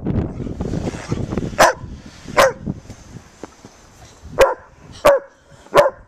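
A large white shepherd-type dog barking five times in short, sharp barks, spaced unevenly about a second apart.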